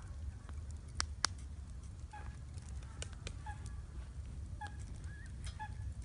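Oysters cooking in their shells on a charcoal grill, crackling with scattered sharp ticks and two louder snaps about a second in as their liquid boils out. Short honk-like squeaks recur every half second or so from about two seconds in.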